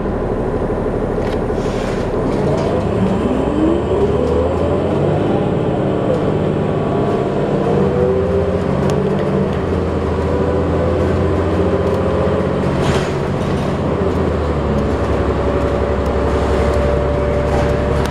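Diesel engine and drivetrain of a 2008 New Flyer D40LF transit bus heard from inside the cabin as the bus pulls away and accelerates, over steady road noise. A whine rises in pitch a few seconds in, then holds steady as the bus cruises.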